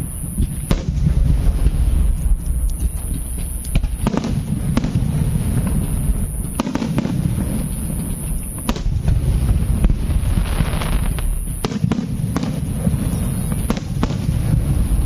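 Fireworks going off: a continuous low rumble of distant bursts, with sharp bangs every second or two and a short hissing burst about ten seconds in.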